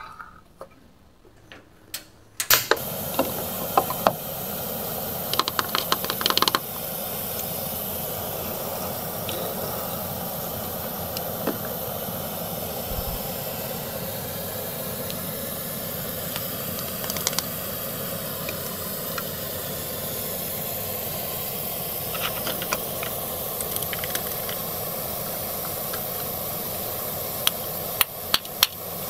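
Toy cooktop with a mist-making frying pan, giving a steady sizzling hiss that starts about two and a half seconds in after a few plastic clicks. More clicks and taps of plastic near the end as toy plastic eggs are handled.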